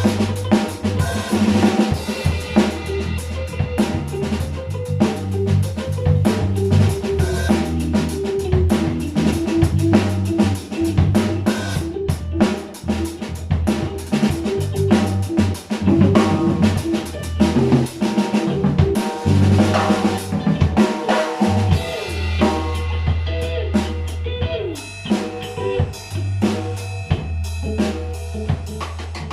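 Music with a drum kit and bass keeping a steady beat under a melodic line, easing off slightly near the end.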